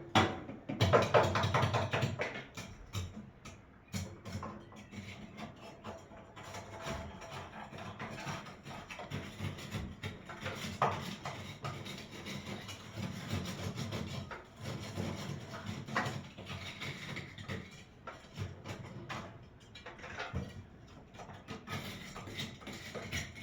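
Background music with a beat, over scattered knocks and clatter.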